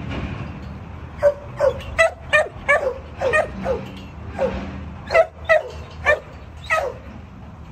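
Dog barking in a run of about a dozen short, high barks, each dropping in pitch, at roughly two a second, starting about a second in.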